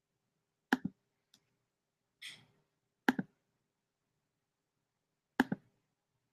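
Computer mouse clicks: three quick double clicks about two and a half seconds apart, with a soft breath between the first two.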